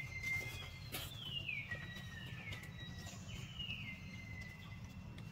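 A bird calling about four times, each call a thin whistle that slides down and then holds a steady note, over a low steady background rumble.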